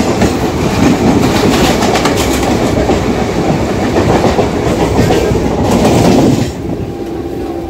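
A passenger train's coaches rushing past close alongside, their wheels clattering over the rail joints in quick clicks. The rush cuts off about six and a half seconds in, leaving the quieter, steadier running of the train the sound is heard from, with a faint steady hum.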